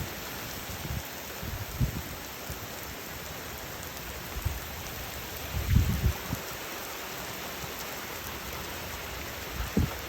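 Heavy rain falling steadily in a thunderstorm, a constant hiss. Brief low rumbles of wind gusting on the microphone break in about two seconds in, near the middle and again near the end.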